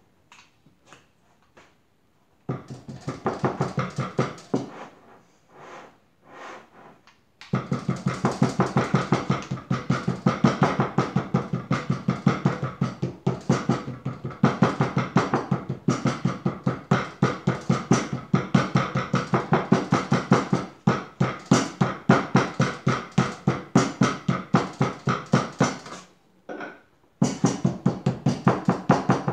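Rubber mallet pounding a cloth-covered slab of clay on a plaster tile mold in quick, steady thuds, several a second, pressing the clay into the mold. The blows start sparse, run almost continuously from a few seconds in, stop for about a second near the end, then resume.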